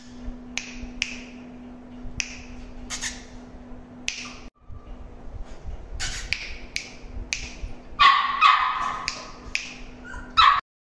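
Saint Bernard puppy giving a string of short, high yips and whimpers, each falling in pitch, one or two a second, loudest about two-thirds of the way through and once more near the end. A steady low hum runs underneath.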